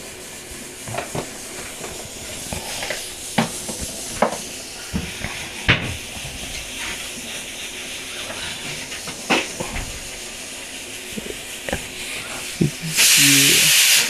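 Steady hiss of a lit gas burner under a saucepan of milk and water for chai, with scattered sharp clicks and clinks from steel spice tins, a lid and a spoon as spices go in. Near the end comes a loud hiss about a second long that cuts off suddenly.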